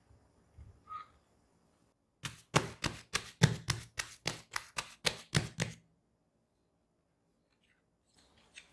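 Hands patting and pressing a ball of risen bread dough flat on a marble counter: a quick run of about fifteen soft slaps, some four a second, lasting three or four seconds. Before it, about a second in, come a couple of soft knocks as the dough is turned out of its glass bowl.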